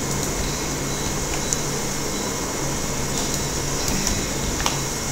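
Steady background hum and hiss with no speech, and a few faint clicks scattered through it.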